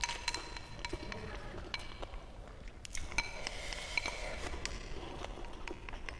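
Wooden chopsticks tapping and scraping against a ceramic bowl as rice is shovelled up and eaten: a run of light clicks and clinks, several of them ringing briefly, with eating sounds.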